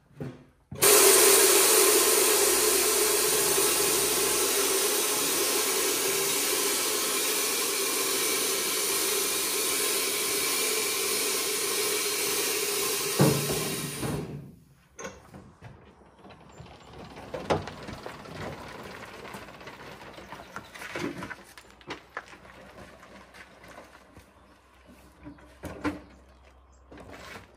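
A loud, steady machine noise runs for about 13 seconds and then cuts off suddenly. Quieter scattered knocks and clatter follow.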